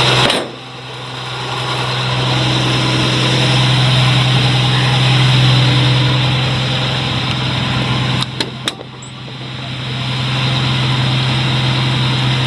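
1983 Jeep CJ-7's engine running after a hard cold start. Its sound drops off suddenly twice, about half a second in and again near nine seconds, and builds back each time, with a few sharp clicks just before the second drop.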